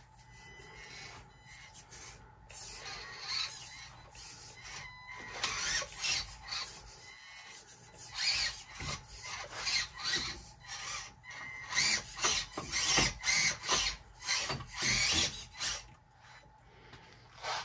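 Micro RC crawler's soft rubber comp pin tires scrabbling and scraping over rock as it climbs, in irregular rasping bursts with small knocks, busiest in the second half.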